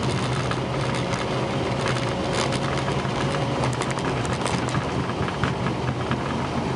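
Steady cockpit noise of an Airbus A340-300 with its engines running, a constant low hum under it, and irregular light ticks of rain on the windshield.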